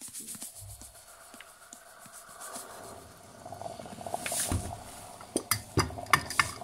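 Caustic soda poured into a glass jar of hot water, a faint hiss as it goes in and clouds the water. A run of sharp clicks and knocks of the glass jar being handled follows near the end.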